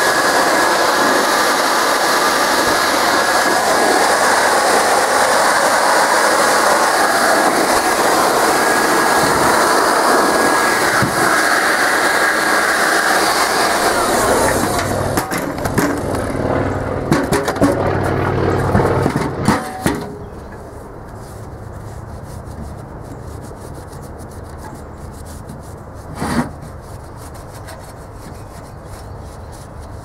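Shop vacuum running steadily with a thin high whine, its hose worked inside a sheet-metal squirrel-cage blower housing. It shuts off about halfway through. Then come several knocks and clatters of the metal housing being handled, and after a quieter stretch, one sharp knock near the end.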